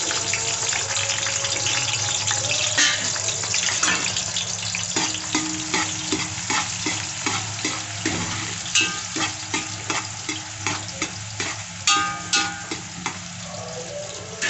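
Sliced onions sizzling and crackling in hot oil in a large metal pot, while a metal spoon stirs them. From about five seconds in, the spoon clinks against the pot in quick regular strokes.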